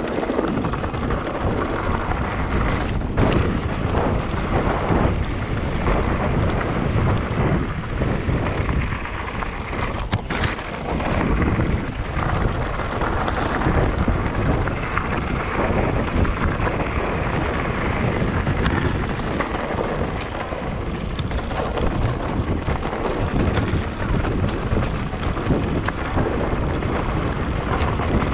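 Wind buffeting the microphone of a camera on a moving mountain bike, mixed with the rumble and rattle of riding over a rough, stony track, with a couple of sharp knocks.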